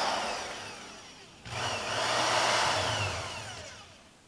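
Electric drill with a thin bit running in two bursts while boring a hole into a shoe heel. The first burst fades out, and the second starts sharply about a second and a half in, then winds down with a falling whine.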